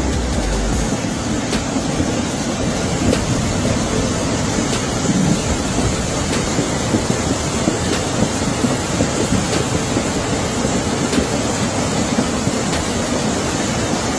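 Steady, dense rushing noise of the hurricane's wind and water, heaviest in the low end, holding at an even level throughout.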